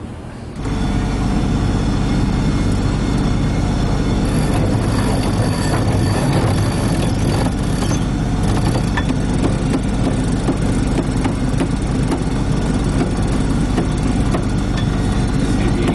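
Steady mechanical drone and rushing noise aboard a sailboat under way, starting abruptly about half a second in, with the small clicks of a sheet winch being cranked.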